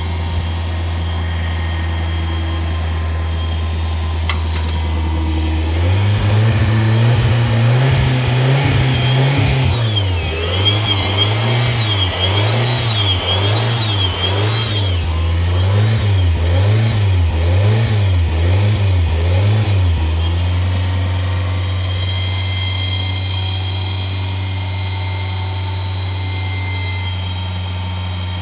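Subaru Sambar kei truck engine running at a steady idle, then revved up and let fall over and over, about once a second, before settling back to idle. It is an engine that starts only when petrol is poured straight into the cylinder, a fault the owner puts down to the distributor or possibly the fuel injection.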